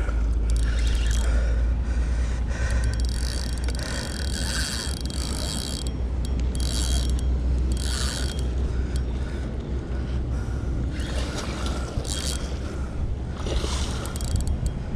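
Spinning reel being cranked while a hooked fish is fought, with the fish splashing at the surface in several short bursts. A steady low rumble of wind on the microphone runs underneath.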